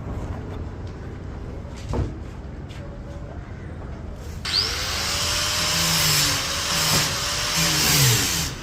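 Spray gun hissing steadily as it sprays coloured polish onto wood. It starts abruptly a little past halfway and cuts off sharply at the end, after a quieter stretch with a single knock.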